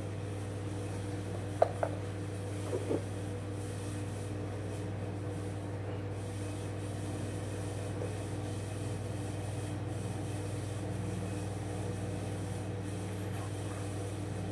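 Steady low hum throughout, with a few light clicks and knocks about two to three seconds in from gloved hands handling a folded pocketknife and its fabric pouch.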